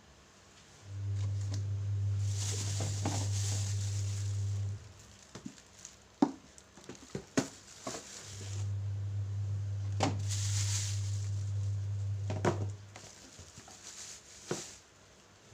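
Household cleaning noises: scattered knocks, clicks and scraping from objects being handled, with a few short stretches of hissing or rubbing. A steady low hum runs in two long stretches, about 4 seconds each, starting and stopping abruptly.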